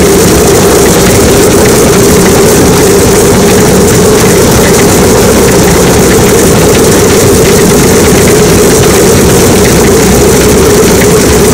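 Antonov An-2's Shvetsov ASh-62IR nine-cylinder radial engine running steadily with the propeller turning, very loud and unchanging.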